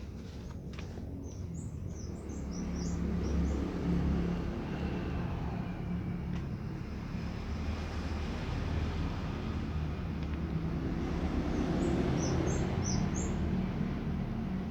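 Outdoor ambience: a steady low rumble of distant traffic, with two short runs of high bird chirps, about two seconds in and again about twelve seconds in.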